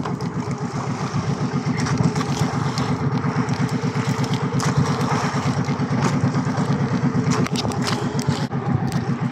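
Small gasoline engine of an outrigger fishing boat running steadily at a fast, even throb.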